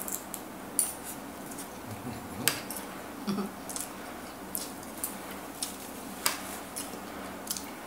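Metal spoons clicking and scraping against ceramic plates now and then, with chewing in between, as two people eat.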